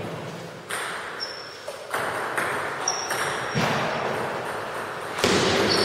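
Table tennis ball knocked back and forth in a rally, sharp clicks of the ball on the rubber bats and the table, some with a short high ring, about one every half second to a second, with a short gap before the last few.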